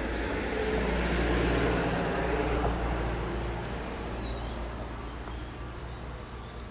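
A road vehicle passing by: a broad rush of traffic noise that swells over the first two seconds and then slowly fades away.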